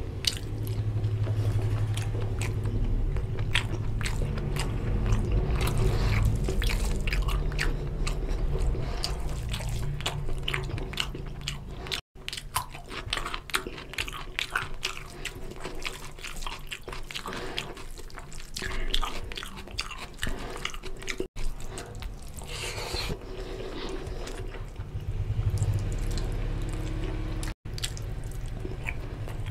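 Close-miked wet chewing and lip-smacking from eating mutton lung curry and rice by hand, with many small mouth clicks and fingers working rice in curry on a steel plate. The sound drops out for an instant three times.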